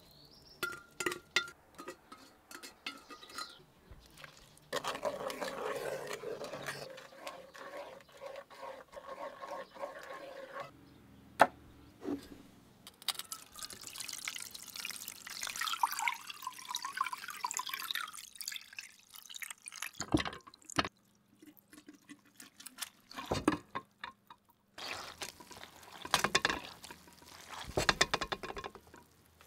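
A wooden spoon stirring rose petals in an aluminium pot, then soaked rose petals and their liquid poured from a clay pot onto cheesecloth, splashing and dripping. The sounds come in several separate stretches.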